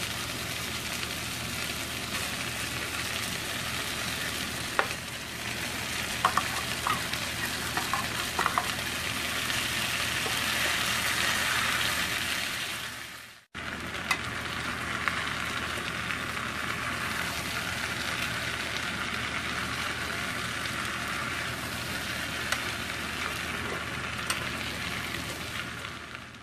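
Corned beef with diced potatoes and tomatoes sizzling in a frying pan while being stirred with a spatula, with a few clicks of the spatula against the pan in the first half. The sizzle cuts out for a moment about halfway.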